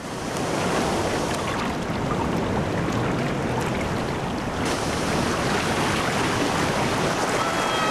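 Heavy storm surf breaking and churning over rocks: a steady, loud rush of white water. A short wavering cry starts near the end.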